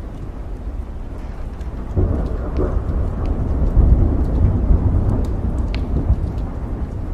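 Steady rain with scattered drops ticking, and a low roll of thunder that builds about two seconds in, is loudest near the middle, then slowly fades.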